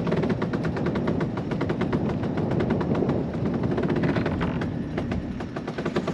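A headsail's cloth fluttering fast in strong wind, a dense rapid rattle, over the low rumble of wind on the microphone.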